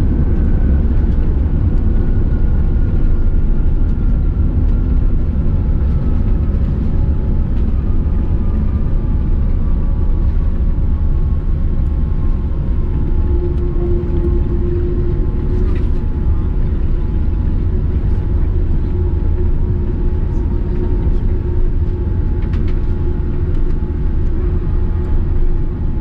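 Cabin noise of a Boeing 787-9 airliner on the ground after landing: a steady low rumble, with a whine that slowly falls in pitch over about sixteen seconds.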